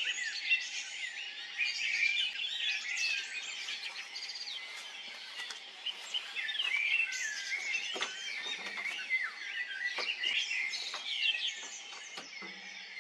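Songbirds singing and chirping at once: a dense chorus of overlapping, varied chirps and song phrases that runs without a break.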